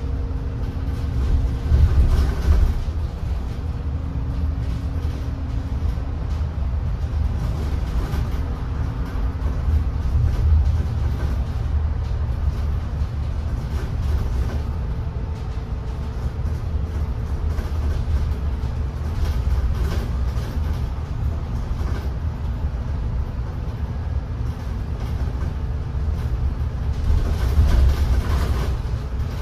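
Steady low rumble of a moving vehicle heard from inside, with faint steady whine tones over it, swelling louder briefly about two seconds in and again near the end.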